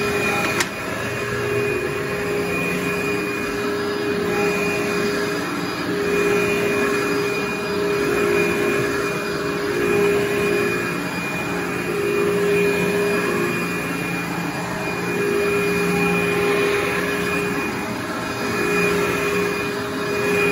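Upright vacuum cleaner running on carpet, its motor drone swelling and easing about every two seconds as it is pushed back and forth. A single sharp click about half a second in.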